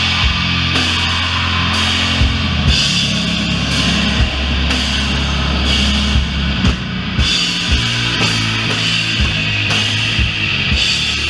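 Doom metal band playing live: heavily distorted guitar and bass hold long low notes under drums and ringing cymbals.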